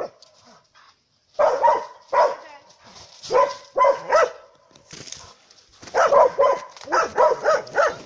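A dog barking repeatedly at a wild lynx, in short runs of barks that follow each other more quickly near the end.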